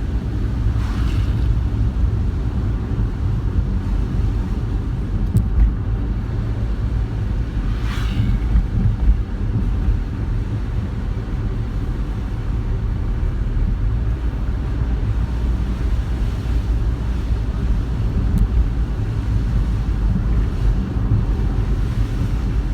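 Steady low rumble of road and engine noise inside a moving car, picked up by a dashcam, with wind buffeting the microphone. Twice a brief swish rises over it.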